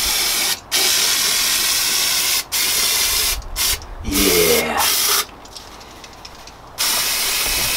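Compressed-air blow gun blasting into the oil passages of a VW air-cooled 1300 crankcase half, blowing out debris and wash liquid: a loud steady hiss in repeated blasts with short breaks, a brief rising whistle about four seconds in, and a pause of about a second and a half before the air starts again near the end.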